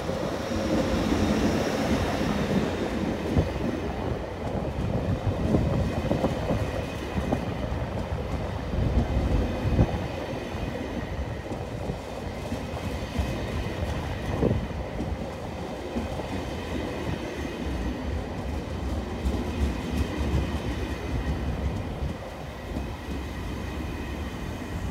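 ÖBB Railjet coaches rolling past as the train pulls into the station, wheels clattering irregularly over the rail joints, louder in the first half and easing off near the end.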